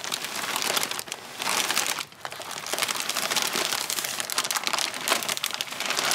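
Clear plastic bag wrapping crinkling and crackling as a hand pushes and pulls it, with short pauses about one and two seconds in.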